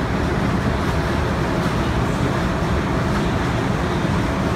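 Steady low rumble of city street traffic, with no distinct events.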